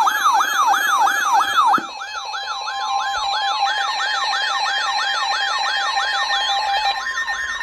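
Electronic siren yelping, its pitch sweeping up and down about four times a second and then a little slower after about two seconds, layered with steady electronic tones.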